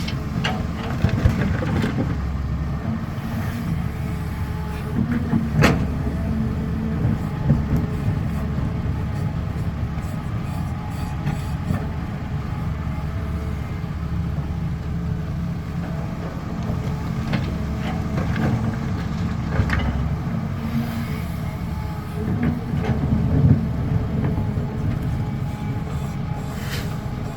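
Caterpillar 320 excavator's diesel engine running steadily under working load, with sharp metallic knocks and clanks now and then from the working machine.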